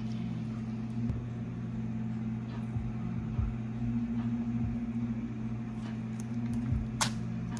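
A steady low hum, with a few light ticks and one sharp click about seven seconds in.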